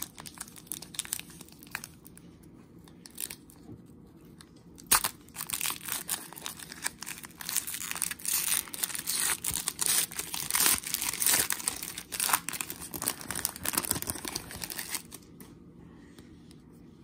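Foil trading card pack wrapper crinkling and tearing as it is pulled open by hand, with one sharp crackle about five seconds in; the crinkling dies away near the end.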